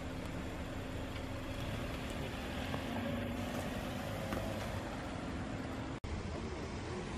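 A car driving slowly past close by, its engine and tyres on asphalt swelling slightly as it goes by, over a steady background hum.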